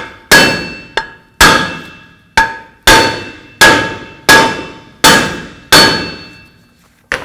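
Hammer striking a Ram 1500's rear cast-iron brake rotor about ten times at an uneven pace, each blow a loud clang followed by a ringing tone that fades over about half a second. The blows are knocking the rust-stuck rotor loose from the hub.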